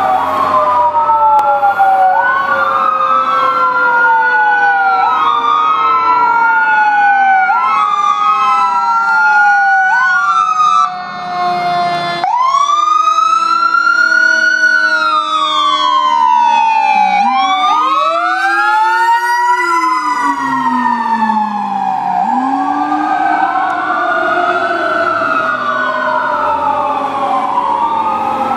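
Fire engine sirens responding: a Whelen 295 electronic siren sweeping up and down about every two and a half seconds, joined by a Federal Q mechanical siren winding up about twelve seconds in and again around seventeen seconds, then slowly falling. A Whelen Howler's low tone rises and falls underneath in the second half.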